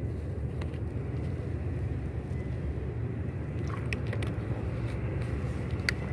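Steady low rumble, with a few light clicks about four seconds in and again near the end.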